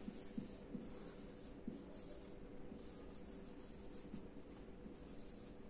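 Faint, irregular scratching strokes of handwriting on a board.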